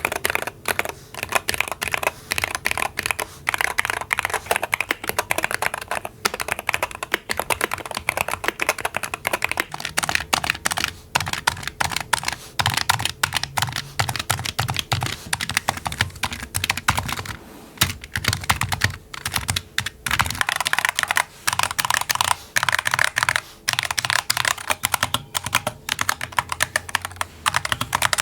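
Rapid typing on gaming keyboards: fast, dense keystroke clacking, with the sound of the keys changing character a few times as different keyboards take turns.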